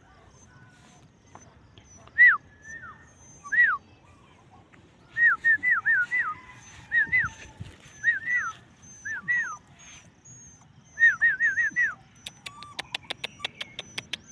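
Puppy whimpering and yipping: short, high-pitched cries that rise then fall, in groups of two to five. A quick run of sharp clicks, about five a second, comes near the end.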